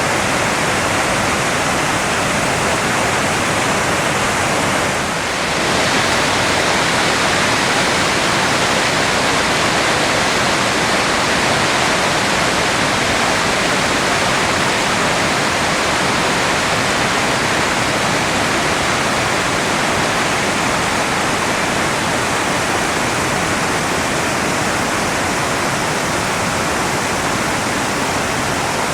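Waterfall crashing down at the Yonako Great Falls: a loud, steady rush of falling water, with a brief dip in level about five seconds in.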